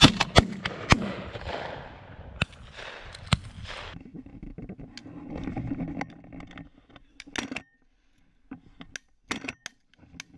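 Shotgun shots at a dove shoot: a loud shot right at the start as the gun cycles and ejects a spent hull, then several more shots over the next three or four seconds. After that only scattered knocks and clicks.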